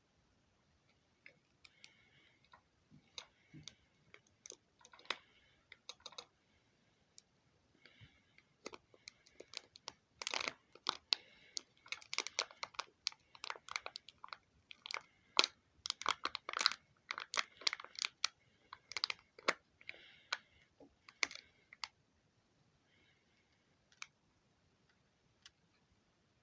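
Kinder Surprise egg's foil, plastic capsule and toy being handled: irregular sharp clicks and crinkles, thickest in the middle stretch and sparse at the start and end.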